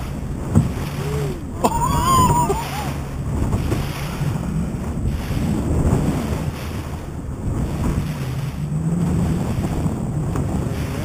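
Heavy wind noise buffeting the microphone over the wash of the sea around a small open boat, with a steady low hum underneath.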